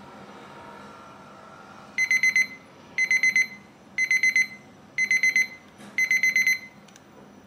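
Digital kitchen timer beeping as its countdown reaches zero: five bursts of rapid high-pitched beeps, one a second, starting about two seconds in.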